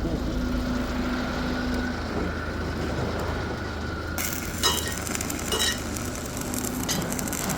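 Steady low machine hum, then from about four seconds in the hissing, crackling sizzle of an electric welding arc on a steel excavator bucket.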